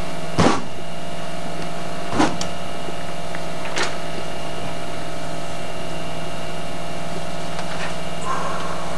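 Steady hum and hiss on an old VHS-dubbed sound track, with a sharp knock about half a second in as shoes land on a desk, and two fainter knocks a couple of seconds apart after it.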